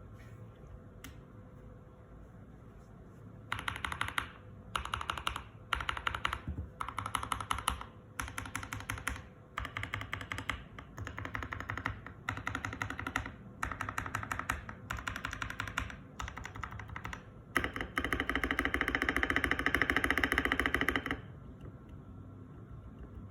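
Typing on a Keychron K2 V2 mechanical keyboard with Boba U4T tactile switches. Fast clacking keystrokes come in runs of about a second with short pauses, starting a few seconds in. Near the end there is a longer, louder unbroken flurry of a few seconds.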